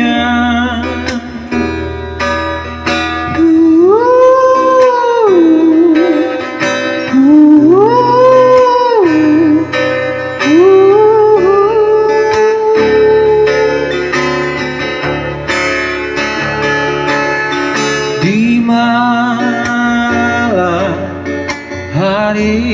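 Background music between sung lines of a song: a melody of long held notes that slide up into pitch, over a steady plucked-string accompaniment.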